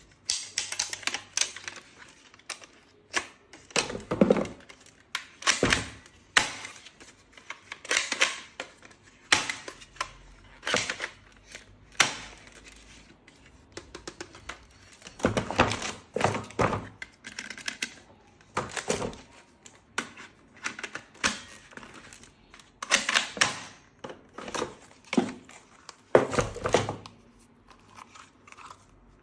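Objects being handled and unpacked: irregular clusters of sharp clicks, clacks and knocks, with rustling of packaging between them.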